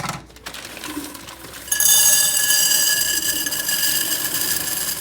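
A small electric motor, like a kitchen appliance, starts about two seconds in and runs steadily with a high whine.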